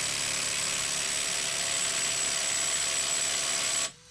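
Hercules HCB81B brushless impact driver hammering continuously under full load against a torque dyno, a steady rattling hammer with a thin high whine. It cuts off suddenly near the end, when the impact socket adapter snaps.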